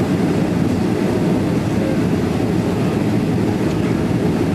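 Steady cabin noise of an airliner taxiing on the ground, its jet engines running at low power, a deep even rumble heard from inside the cabin.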